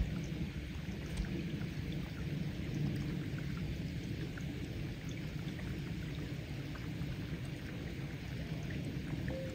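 Steady low rushing noise, with a few faint ticks scattered through it.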